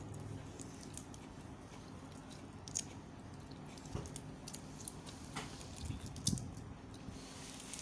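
Close chewing of food, with small crackles and a few sharper clicks as cooked shrimp are peeled by hand; a low steady hum lies underneath.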